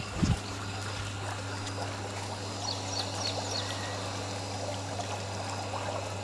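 Swimming-pool water trickling steadily over a low steady hum. There is a brief low sound about a quarter second in, and a few short high chirps around the middle.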